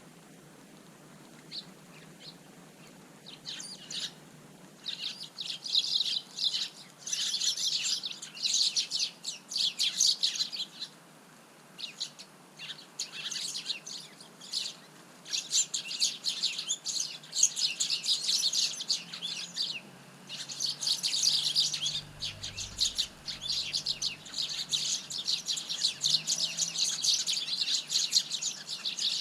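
Eurasian tree sparrows chirping in dense, rapid chattering bouts, broken by a couple of short pauses.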